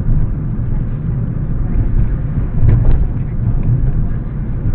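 Steady low rumble of engine and road noise inside a moving car, as picked up by a dash cam's built-in microphone, with a brief knock a little under three seconds in.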